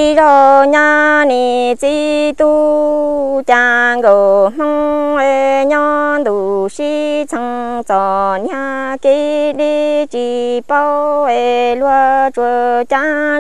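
A solo voice singing Hmong kwv txhiaj, unaccompanied. Syllables are chanted on level, held pitches, and several phrases fall in pitch at their end.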